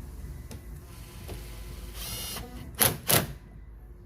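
Ratchet wrench with a 10mm socket tightening the door handle's bolt, a short run of fast ratchet clicks about halfway through, followed by two loud sharp clacks close together near the end.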